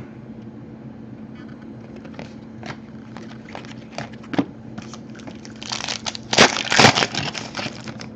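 Trading cards being handled, with soft scattered clicks, then a louder burst of crinkling pack wrapper about six to seven and a half seconds in.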